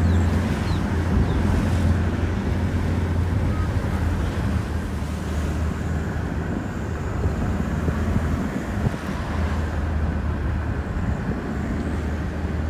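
Car driving along a road: steady low engine and road drone, with wind rushing in through the open window onto the microphone.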